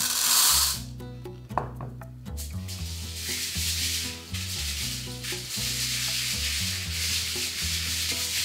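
Dried azuki beans spilling into a stainless steel mesh strainer in a short burst at the start. From about two and a half seconds in, tap water runs steadily into the strainer as a hand rubs the beans clean. Soft background music with low notes plays underneath.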